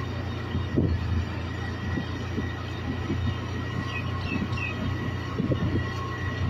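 Steady low rumble of a moving vehicle carrying the camera, with road noise, a constant hum and a few faint chirps about four seconds in.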